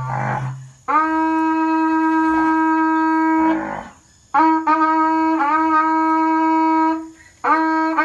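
A berrante, the Brazilian cattle-calling horn made of ox horn, is blown to call cattle. A lower, rougher note fades out at the start. Then come three long, steady, high held blasts: the first lasts about two and a half seconds, the second nearly three, and the third begins near the end.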